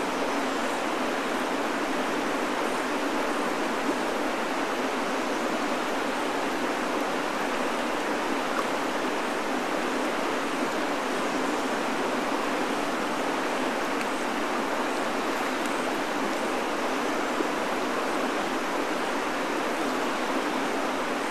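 Steady rush of river current running over shallow riffles.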